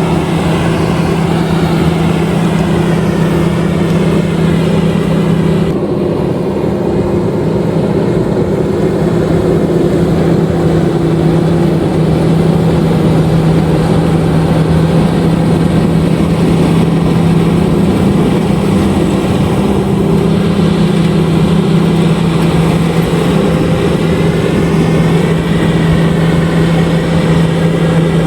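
LOVOL RG130EVO rice combine harvester's diesel engine running steadily, a loud constant drone; its brighter upper part dulls about six seconds in and comes back later.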